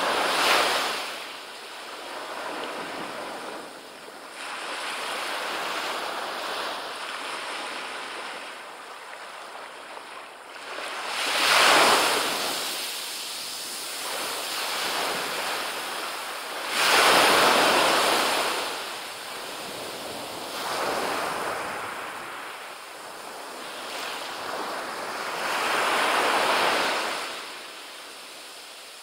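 Small ocean waves breaking and washing up a sandy beach: a hissing wash that swells and fades in surges several seconds apart, the loudest a few seconds apart in the middle.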